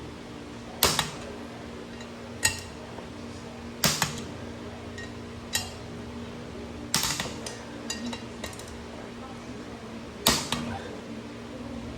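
Click-type torque wrench clicking on the rear sprocket's flange bolts: a sharp metallic click every one to two seconds, about seven in all. Each click is a bolt being checked at about 42 ft-lb and found already at torque.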